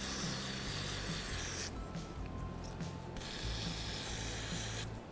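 Aerosol brake parts cleaner hissing from the can's extension straw onto a brake pad abutment clip, in two bursts: one that stops under two seconds in, and another from about three seconds in to near the end.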